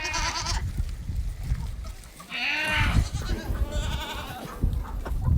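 Goats bleating: three or four wavering calls, one after another, a second or so apart.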